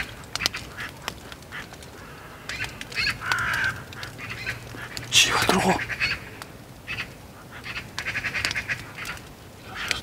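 Magpies chattering: harsh calls in several short bursts, with a rapid rattling chatter near the end.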